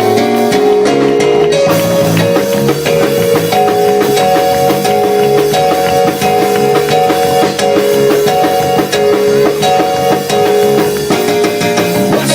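Church band playing an up-tempo praise break: held organ or keyboard chords over drum kit and bass, with no singing.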